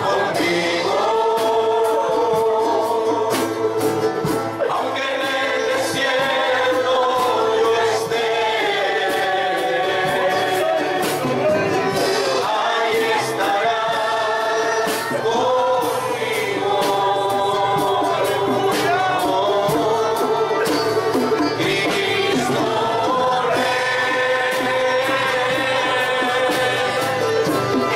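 A congregation singing a Spanish-language praise song together, many voices at once, over a band with light percussion.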